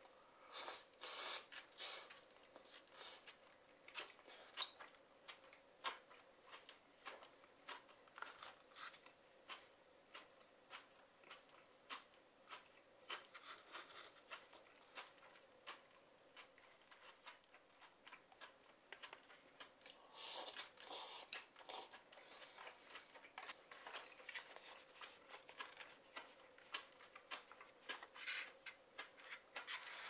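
Close-miked eating of thick ramen noodles and bean sprouts: soft chewing and wet mouth clicks in quick, irregular ticks. There are longer, denser stretches of sound about a second in and again around twenty seconds in.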